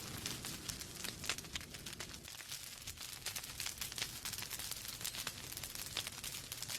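Wood fire crackling in a fireplace: burning logs popping and snapping in quick, irregular clicks over a low hiss and rumble of the flames.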